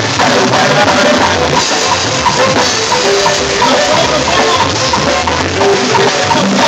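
Live duranguense band playing loudly, with a steady drum beat under keyboard and saxophone.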